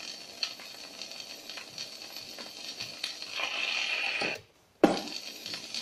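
Gramophone needle riding the end of a shellac 78 rpm record after the song has finished: steady surface hiss and crackle with a soft click repeating about every three-quarters of a second. Just after four seconds in the sound cuts out briefly, then comes back with a single sharp thump.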